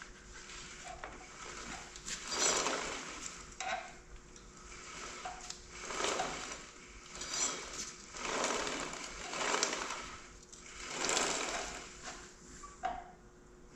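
Dirt bike's rear wheel turned by hand in short pushes, the drive chain whirring over the sprockets in repeated swells about a second apart.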